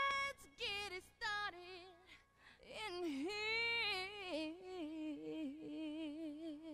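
A woman's voice singing alone with no accompaniment: a few short falling phrases, then a long held note that wavers with vibrato and slides in pitch.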